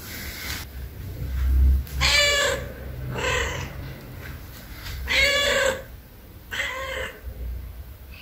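Tuxedo cat meowing four times, in two pairs of calls, asking for food. A loud low rumble comes just before the first meow.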